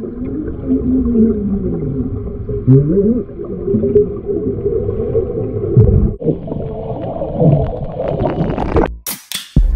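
Two people talking underwater: muffled, warbling, gurgling voices with wavering pitch glides, and bubbling water. Near the end it breaks off into a few sharp hits.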